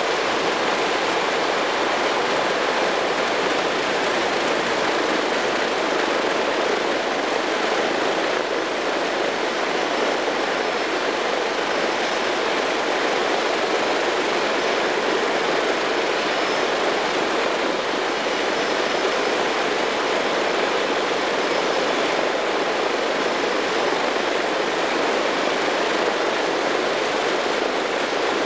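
Wright R-3350 eighteen-cylinder radial engines of a Lockheed Super Constellation running on the ground: a loud, steady, even rush of engine and propeller noise with no single beats standing out.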